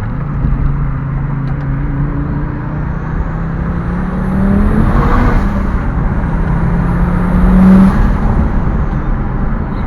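Fiat Marea Turbo's turbocharged five-cylinder engine accelerating hard under load, rising in pitch twice with a high turbo whistle climbing over it. The second pull is the loudest and ends about eight seconds in as the throttle closes and the revs fall.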